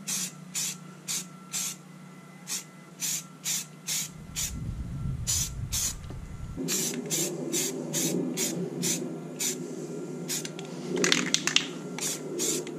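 Aerosol spray-paint can (rattle can) spraying a base coat onto rifle magazines in a rapid series of short hissing bursts, roughly two a second, with a pause of a couple of seconds partway through.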